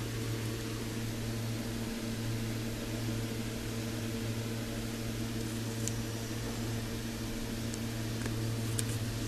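Steady low mains hum from a step-down transformer, with a couple of faint clicks from the burst electrolytic capacitor being handled.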